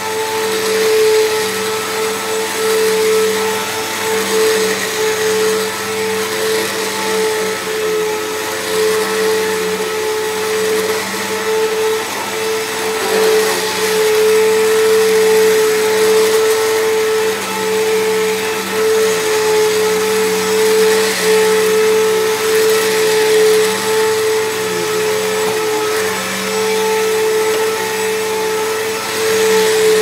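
Bissell CleanView PowerTrak 6590 upright vacuum running loudly on carpet: a steady motor tone over rushing air, its loudness wavering slightly as it is pushed back and forth.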